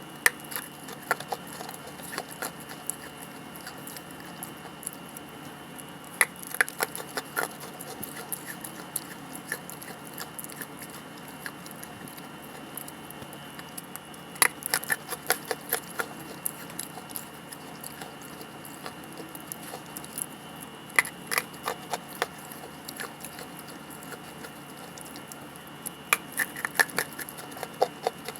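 A lump of dry grey earth (clay) being bitten and chewed in close-up. It gives four bursts of crisp crunching several seconds apart, with quieter scattered crunches between them.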